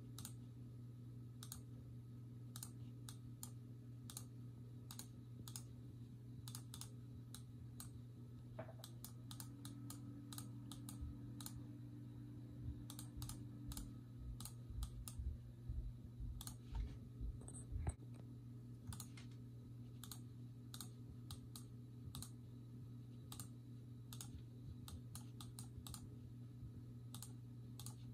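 Irregular clicking of a computer mouse, a few clicks a second, over a steady low hum. There is a stretch of soft low bumps around the middle.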